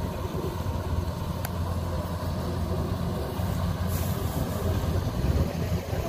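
A steady low engine hum with a faint rumble of wind on the microphone.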